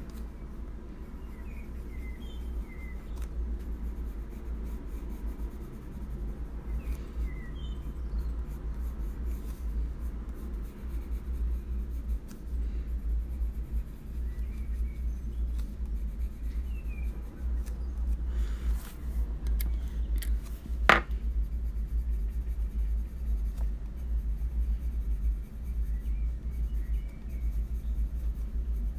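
Faber-Castell Polychromos colored pencil shading on coloring-book paper: soft scratching strokes over a steady low hum, with one sharp click about two-thirds of the way through.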